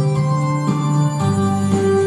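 Electronic keyboard on an organ-like setting playing held chords, changing chord about twice: the instrumental introduction to a school anthem, before the singing comes in.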